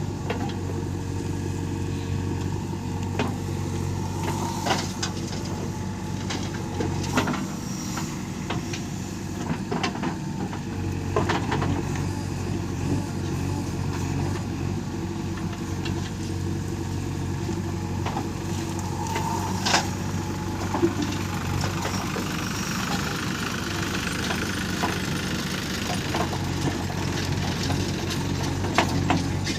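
Diesel engines of a backhoe loader and a tractor running steadily at a low, even speed, with a few short knocks and clanks spread through.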